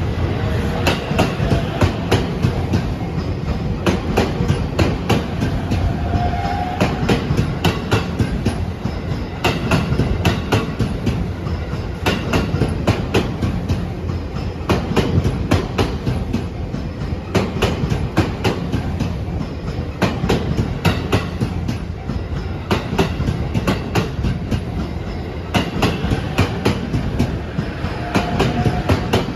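JR East E257 series electric train, a 2000 sub-series set coupled to a 2500 sub-series set, passing close by with its wheels clacking steadily over the rail joints.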